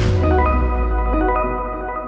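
Background music: a drum-driven electronic track breaks off and sustained organ-like keyboard chords ring out over a deep low note that slowly fades.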